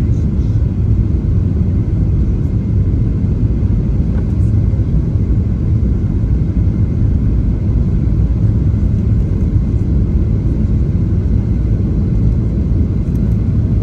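Steady low rumble of engine and airflow noise in the cabin of a Boeing 737-700 on final approach with flaps extended, heard over the wing.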